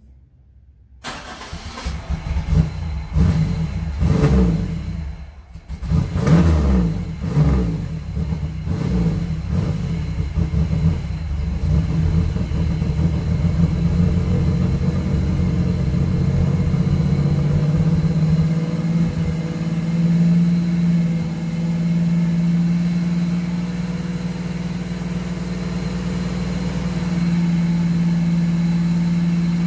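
Fourth-generation Chevrolet Camaro engine starting after sitting for three months. It comes in suddenly about a second in and surges unevenly while it is revved, dipping briefly around five seconds in. It then settles into a steady idle.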